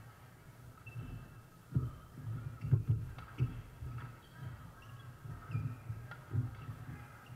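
Sounds of a badminton rally on a hardwood gym court: irregular dull thuds of players' footsteps and lunges starting a couple of seconds in, with short shoe squeaks and a few sharp racket hits on the shuttlecock.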